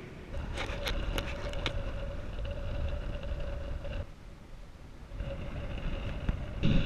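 Wind rushing over a camera microphone on a paraglider in flight: a low buffeting rumble with a faint steady whistle, and a few sharp clicks near the start. The rush drops off about four seconds in and builds again a second later.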